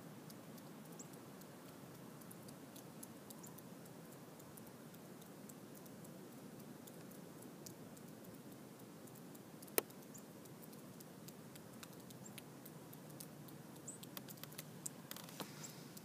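Faint steady background hiss with scattered small clicks and ticks. One sharp click comes about ten seconds in, and near the end there is a brief rustle with a quick run of clicks.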